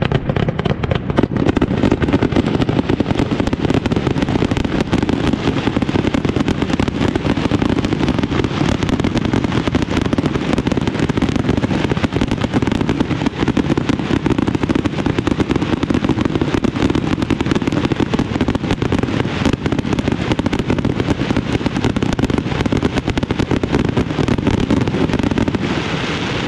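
Daytime fireworks display: a loud, unbroken barrage of rapid pops and crackles from fireworks launched from the ground, over a steady low rumble.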